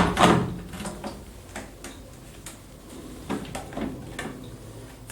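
Plastic clicks and knocks as a Coway BA13 electric bidet seat is slid along its mounting board and latched on. There is one loud knock at the start, then a string of lighter clicks and taps.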